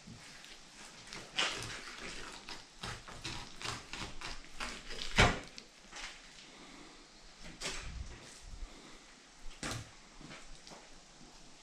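Handling noises of a fillet knife and raw northern pike fillets on a tabletop: scattered soft taps and knocks, with one sharper knock about five seconds in.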